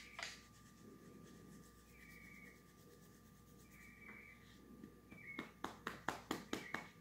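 A hand scratching and rubbing a dog's fur: light rubbing, then a quick run of about seven scratching strokes near the end.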